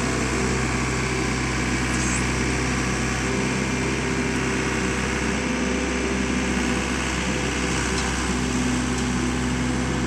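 Case 1840 skid steer's diesel engine running steadily under hydraulic load as the loader arms lift the bucket.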